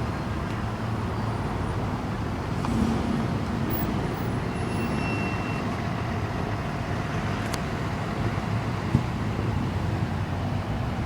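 Steady vehicle and road noise, a motor running with a low hum, with a single sharp click about nine seconds in.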